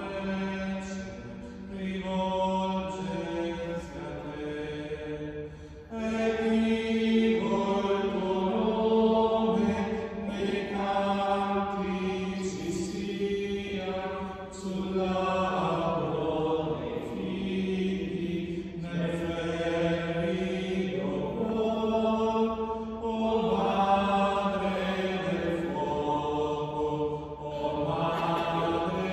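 A few men's voices singing a hymn together in long phrases of held notes, inside a large cathedral.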